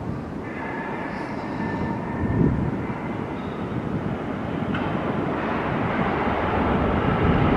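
Bombardier R179 subway train approaching through the tunnel. It makes a steady rumble of wheels on rail, with a few thin high tones over it, and grows gradually louder as the train comes in.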